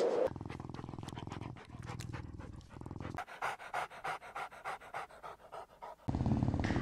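Puppy panting in quick, even breaths, about four or five a second. A louder low rumbling sound cuts in near the end.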